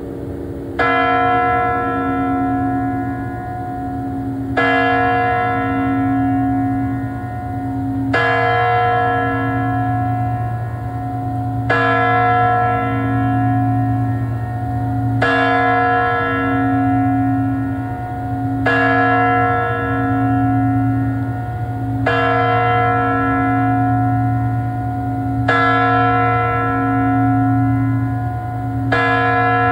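The Spasskaya Tower clock bell of the Moscow Kremlin striking midnight. Nine heavy strokes come about every three and a half seconds, each ringing on until the next.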